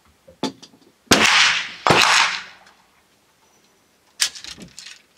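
Two gunshots about a second apart, each ringing out for roughly a second, followed about four seconds in by a quick run of fainter sharp cracks.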